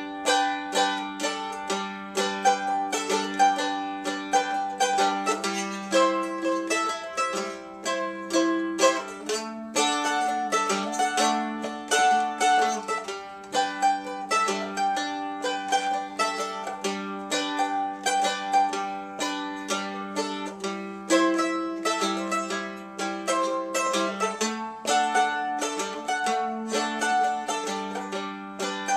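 Vintage May Bell mandolin playing an instrumental break, a quick run of plucked notes over sustained lower notes.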